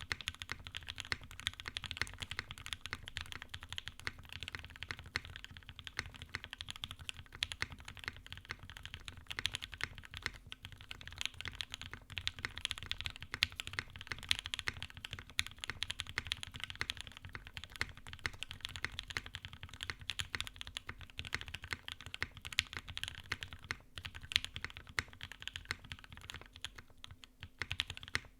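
Continuous typing on a top-mount KFE CE custom mechanical keyboard with Durock Creamy Pink L3 linear switches, a polycarbonate plate and CRP keycaps. It is a dense stream of keystrokes that stops near the end. The switches are heavily lubed, which the builder calls overlubed.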